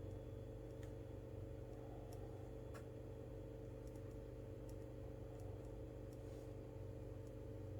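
A few faint, scattered clicks over a steady low electrical hum: small sounds of desk work at a study desk.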